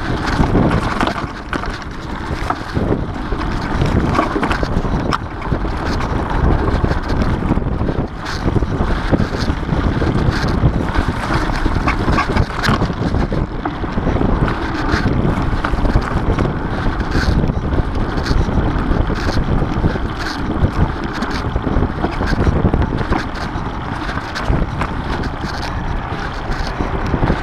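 Wind noise on the microphone and a steady rumble from a mountain bike rolling over a dirt and grass trail, with frequent small clicks and rattles as the bike goes over bumps.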